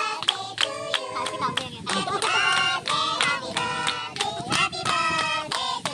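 A group of people singing together and clapping along to the song.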